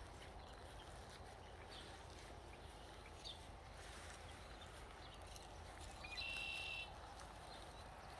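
A small bird chirping a few times, then giving a short rapid trill about six seconds in, over faint steady background noise.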